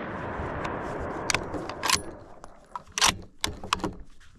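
The bolt of a Savage Axis .308 bolt-action rifle being worked, with a few sharp metallic clicks and clacks after a brief rustle. The loudest clack comes about three seconds in.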